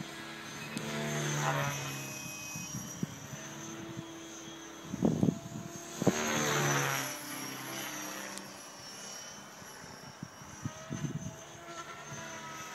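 Radio-controlled model helicopter flying passes overhead: its motor and rotor whine swells up and falls in pitch as it goes by, twice, about one and six seconds in. There is a brief low rumble just before the second pass.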